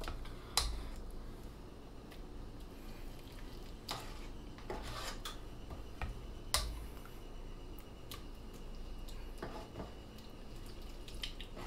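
A serving spoon clinking and tapping against metal cookware as thick tomato sauce is spooned onto rigatoni packed in a springform pan: about five sharp clinks a second or more apart, over a low background.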